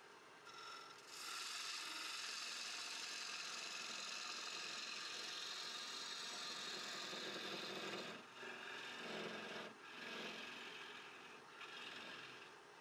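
Gouge cutting into a spinning she oak bowl blank on a wood lathe, hollowing the inside: a steady hiss of shavings peeling off. The cut starts about a second in and breaks off briefly a few times in the second half as the tool eases off.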